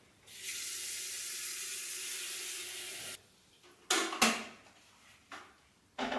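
Kitchen tap running into a steel sink for about three seconds, then shut off sharply, followed by a few short knocks of things being handled on the counter.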